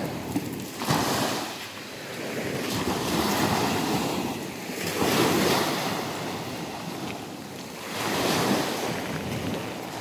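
Small sea waves breaking and washing up a sandy beach, the surf swelling and fading in about four surges, with wind rumbling on the microphone.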